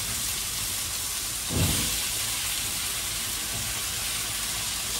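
Strawberries frying in melted butter in a pan, a steady sizzle, with a brief thud about a second and a half in.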